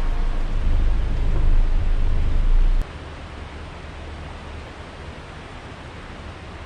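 Wind buffeting the microphone with a heavy low rumble, cutting off abruptly about three seconds in and leaving a steady rushing hiss of outdoor wind and water noise.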